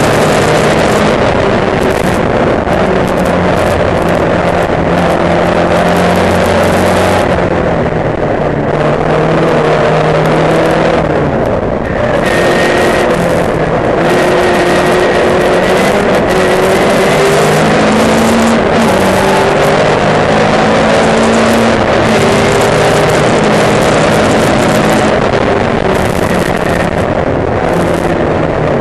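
Race car engine heard from onboard, running hard at racing speed. The engine note rises as it accelerates and falls away as it backs off, over a constant loud rush of noise.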